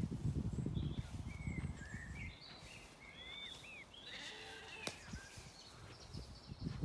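Small birds singing, a run of short chirps and curved whistled notes through the middle. A louder low rumbling noise on the microphone in the first two seconds and again near the end.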